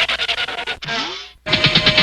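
Cartoon sound effects playing one after another: a rapid pulsing effect, a short rising glide about a second in, then another rapid pulsing effect.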